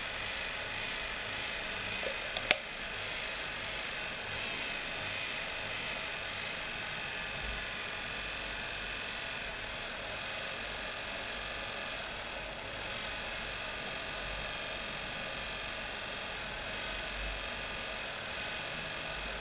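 Old washing-machine motor running steadily under closed-loop speed control, its whine holding a constant pitch while its supply voltage is lowered to about 100 V. There is one sharp click about two and a half seconds in.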